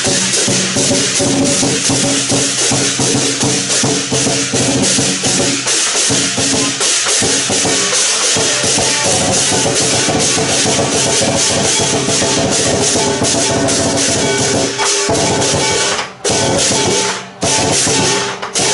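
Chinese lion dance percussion: a big drum and clashing cymbals played loudly and continuously, with a dense metallic wash over the drumbeats. It cuts out briefly twice near the end.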